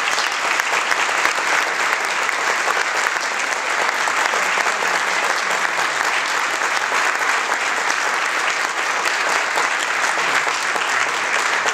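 Audience applauding, a sustained, steady round of clapping from a large crowd.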